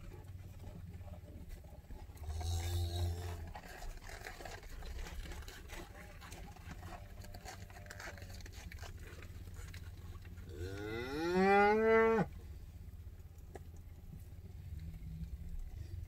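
Beef cattle mooing: a shorter moo about two seconds in, then a long, loud moo about ten and a half seconds in that rises and falls in pitch and breaks off sharply. A low steady rumble runs underneath.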